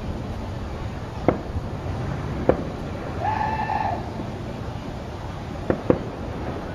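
Outdoor ambience of steady low background noise with a few sharp pops, two of them close together near the end. About three seconds in there is a brief high, steady-pitched call lasting under a second.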